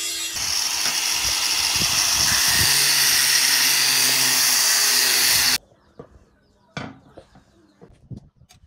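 Angle grinder with an abrasive disc grinding a steel file, a steady loud hiss of abrasive on metal that cuts off abruptly a little past halfway. After it come a few faint taps and clicks.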